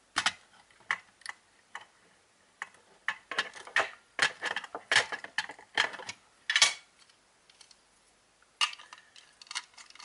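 Irregular clicks and light knocks of a hard plastic walkie-talkie case being handled and moved about on a workbench, in quick clusters with a quiet gap of about a second and a half near the end.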